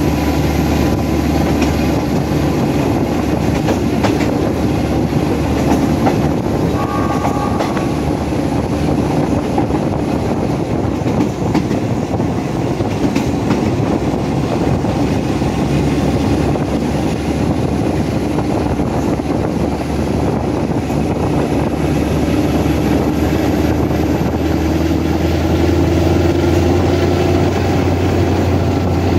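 Alsthom diesel-electric locomotive 4218 working its engine hard as it pulls the train, heard from right alongside it, over a steady clatter of wheels on the rails. The engine note rises and grows louder near the end.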